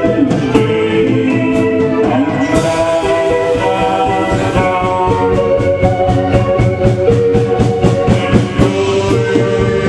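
Live band playing an instrumental passage: held chords over a drum beat, with steady cymbal strokes through the second half.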